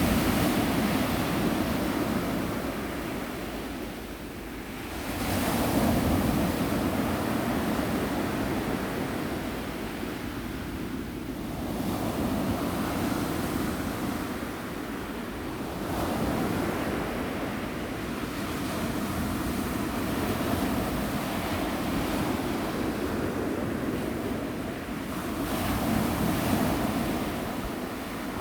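Ocean waves breaking and washing in, the surf swelling and easing off again every several seconds.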